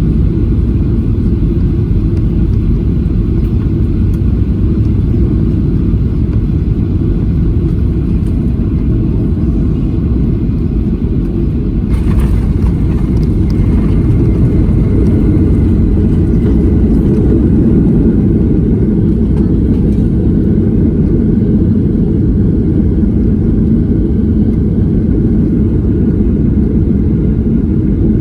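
Strong wind rumbling on the microphone over the jet engines of a Boeing 737-800 on its landing. A brief louder noise comes about twelve seconds in, followed for a few seconds by a faint high engine whine.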